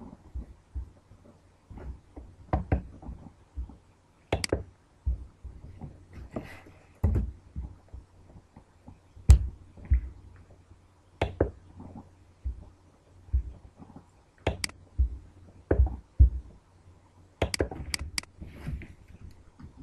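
Irregular clicks and knocks of a computer mouse and keyboard being used, picked up close by the computer's own microphone, with a quick run of three or four clicks near the end.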